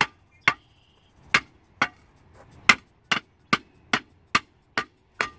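Light, sharp knocks, about two a second, of a brick being tapped down into a pea-gravel base until it sits level.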